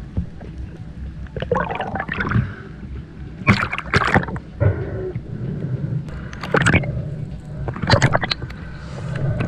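Water sloshing and gurgling around a camera near the surface, in several short loud bursts over a steady low rumble.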